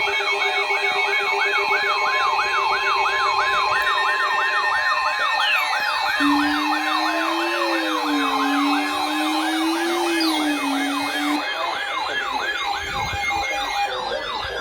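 Electronic emergency alert siren warbling rapidly up and down, about three times a second, layered over steady alert tones. A lower, slowly wavering tone joins in the middle.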